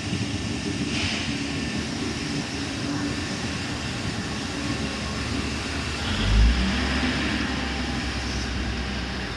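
Stainless-steel passenger train rolling along the platform: a steady rumble of wheels on rail. About six seconds in there is a loud low thud, then a steady low hum.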